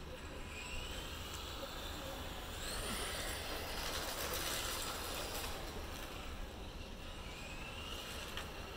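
Tamiya TT02 shaft-driven electric RC car's motor and drivetrain whining faintly as it drives on asphalt. The pitch rises and falls several times as the car speeds up and slows down, over a low steady rumble.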